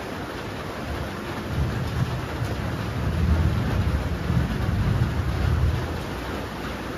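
Steady rain falling, with a low rumble of thunder that rolls in about one and a half seconds in, swells, and dies away about a second before the end.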